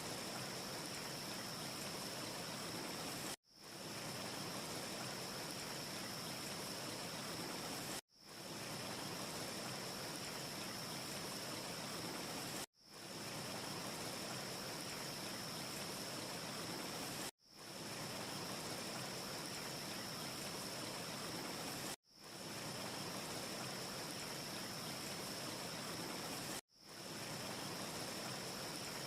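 Steady rushing noise from a short ambience loop with a thin high whine on top, with no crackle heard. It drops out sharply about every four and a half seconds and fades back in over about a second, the seam of the repeating loop.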